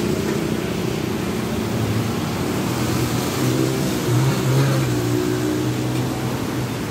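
Road traffic passing on a wet street in the rain: vehicle engines running, one passing closest and loudest about four seconds in, over a steady hiss of rain and tyres on the wet road.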